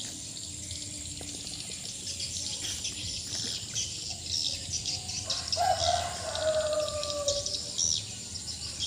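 A rooster crows once, a long call sliding slightly down in pitch, starting about five seconds in, over continuous high insect and bird chirping.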